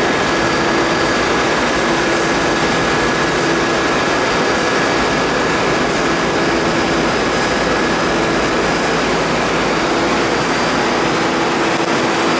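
New York City subway train running through the tunnel: a steady rumble with faint clicks roughly every second or so.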